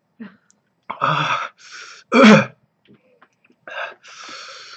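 A man coughing and clearing his throat in a run of short harsh bursts, the loudest a little after two seconds in: a reaction to the burn of a ghost chili pepper (bhut jolokia) in his mouth and throat.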